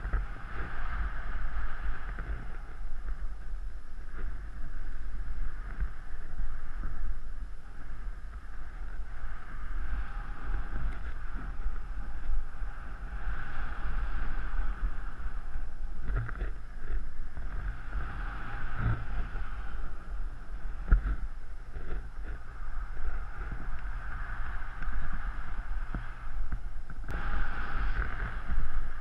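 Wind rushing over the camera's microphone in paraglider flight: a steady low rumble with a hiss that swells and fades every few seconds.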